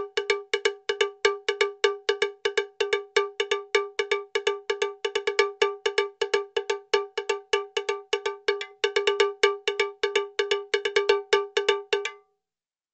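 A single bell-like note struck over and over at an even rapid pace, about five strikes a second, stopping abruptly near the end.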